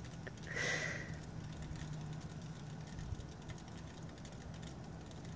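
Bath bomb fizzing in a glass pitcher of water, a faint, steady crackle of tiny bubbles popping in the overflowing foam, with a brief soft hiss about a second in.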